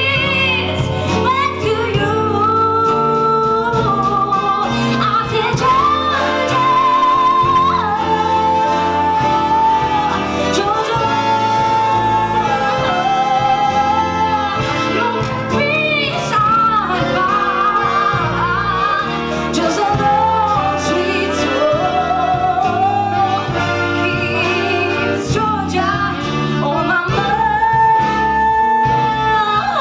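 A woman singing live into a microphone, backed by a band, holding long notes with vibrato over the accompaniment.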